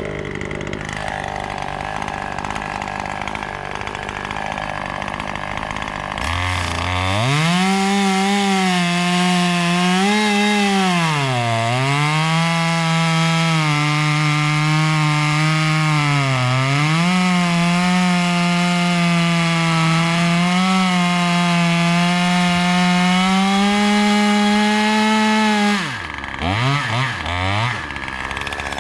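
A Husqvarna 540 XP Mark III two-stroke chainsaw idles, then is opened to full throttle about six seconds in and held there for about twenty seconds. Its pitch sags twice as the chain bites into wood. It then drops back to idle, with a few short throttle blips near the end.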